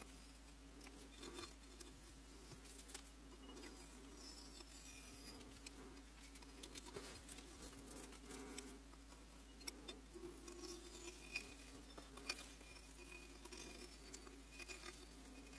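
Faint scratching and scraping of a carving tool cutting grooves into a clay mug as it turns on a banding wheel, with scattered small ticks of clay shavings breaking off over a low steady hum.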